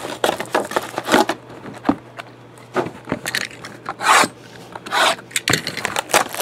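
Hands handling sealed trading card boxes and packs, with a clear plastic wrapper crinkling and cardboard rubbing and scraping in irregular bursts. The loudest burst comes about four seconds in.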